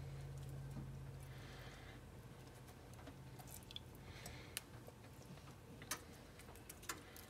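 Faint soft dabbing of a silicone pastry brush spreading melted butter over crumb-coated chicken tenders, with a few light clicks as the brush taps against a ceramic mug, over a low hum.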